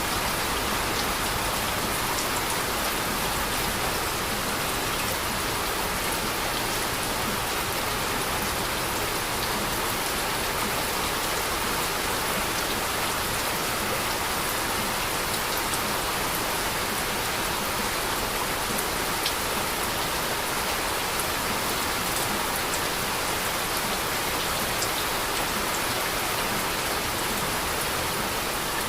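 Heavy rain falling steadily, a dense even hiss with scattered drops ticking on a surface.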